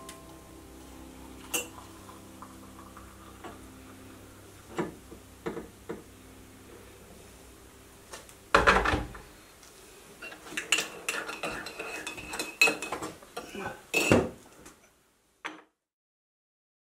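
Dishes and cutlery clattering: scattered clinks and knocks, then a loud knock about eight and a half seconds in and a run of clinking and knocking over the next several seconds that stops short.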